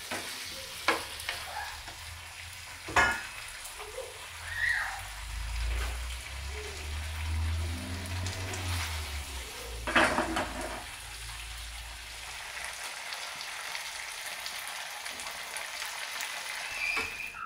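Pieces of barracuda in sweet and sour sauce sizzling in a nonstick frying pan while a spatula stirs them, with a few sharp knocks of the spatula against the pan.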